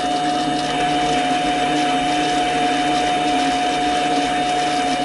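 Mini lathe running steadily, its motor and spindle drive giving an even whine with a constant tone.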